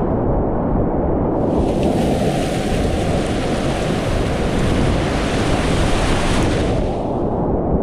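Roar of big whitewater rapids on the Tallulah River at a high-water release, heard close from a kayak running them. It is a steady rushing noise that sounds duller for the first second or so and again near the end.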